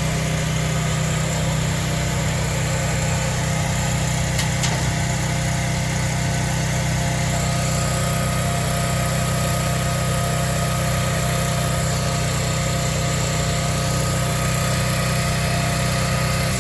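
Generator engine running steadily, an unchanging hum.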